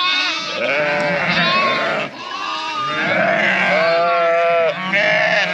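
A flock of Sönmez dairy sheep bleating, many voices overlapping continuously, with one louder, longer bleat about four seconds in.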